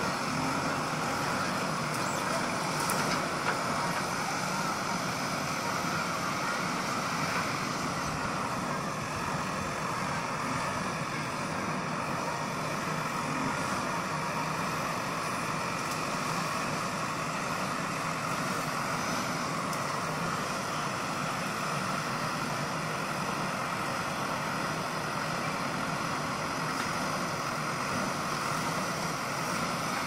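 JCB 3DX backhoe loader's diesel engine running steadily under load as the backhoe arm digs and dumps soil.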